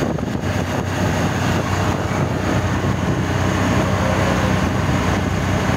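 Steady engine drone with road and wind noise, heard from inside a moving vehicle.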